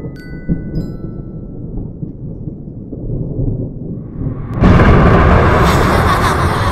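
Thunder sound effect: a low rumble that swells, then about four and a half seconds in a sudden loud thunderclap that rolls on and slowly fades. The last notes of a chime melody die away in the first second or so.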